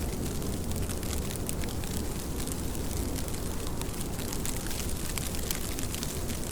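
Steady rain: a constant wash of falling water over a deep rumble, with a dense patter of individual drops.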